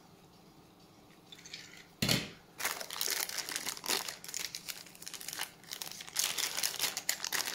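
Small zip-lock plastic bag crinkling and rustling in the hands as it is picked out of the box and opened. It starts about two seconds in with a sharp crackle and then runs on as dense, irregular crackling.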